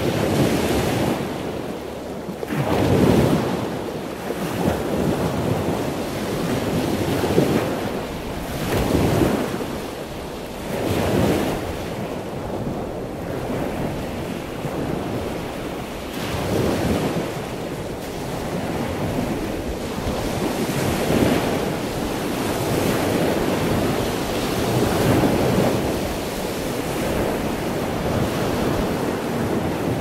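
Ocean surf: waves breaking and washing in over and over, the rush swelling and fading every few seconds.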